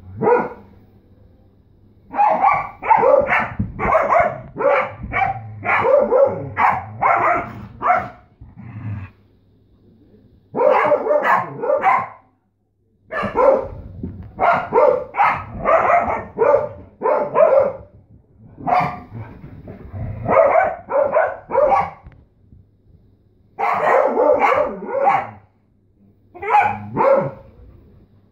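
Dogs barking during rough play, in runs of sharp barks at about two a second broken by short pauses.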